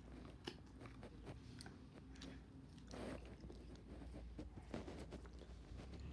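Faint chewing and crunching of hard sour candy, a scatter of small irregular clicks and crackles with a brief louder rustle about three seconds in.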